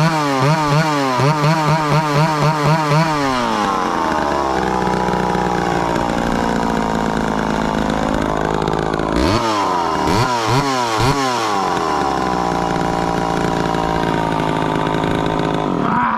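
Chainsaw engine, its speed rising and falling in quick pulses for the first few seconds, then running steadily at high speed with a few sharp dips and recoveries in the middle; it cuts off suddenly at the end.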